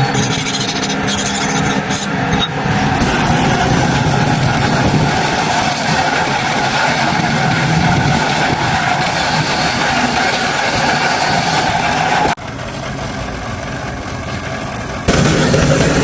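An electric power tool runs against the steel cleaver blade: a steady loud whir with harsh grinding noise. The sound abruptly drops quieter about twelve seconds in and comes back louder about three seconds later.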